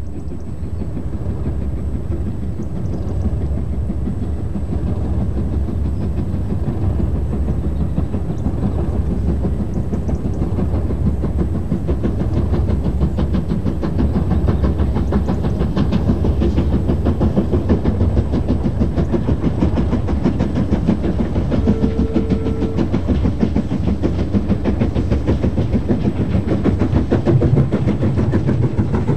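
LMS Black Five two-cylinder 4-6-0 steam locomotive working hard, its rapid exhaust beats growing louder as it approaches, with a short steady tone about three-quarters of the way through.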